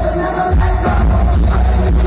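Live rock band playing loud through a venue PA, with heavy bass and drums, electric guitars and a vocalist singing into a microphone.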